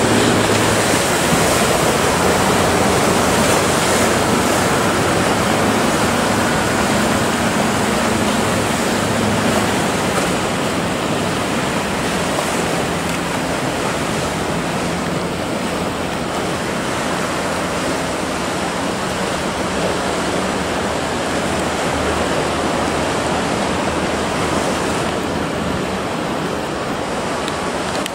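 Choppy sea swell churning and breaking in a steady rush of water, with a faint low drone of motorboat engines under it.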